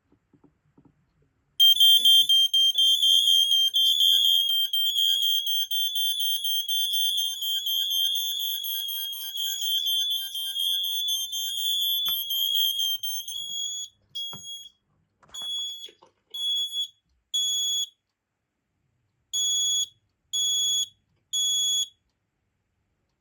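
Kidde Fyrnetics PI2000 smoke alarm and other alarms on the board sounding on test. The high-pitched tones overlap densely for about twelve seconds, then drop to two rounds of three beeps, the temporal-three smoke-alarm pattern.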